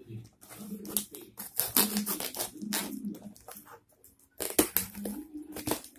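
Utility knife cutting through the packing tape and cardboard of a parcel, with irregular scraping, crackling and tearing strokes, a short pause about four seconds in, then a few sharper cuts.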